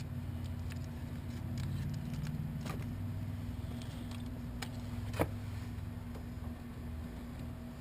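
Light clicks, taps and crinkles as sheets of Fat Mat sound deadener are handled and pressed onto the sheet metal of a RAV4 door, with one sharp click a little past the middle. A steady low hum runs underneath.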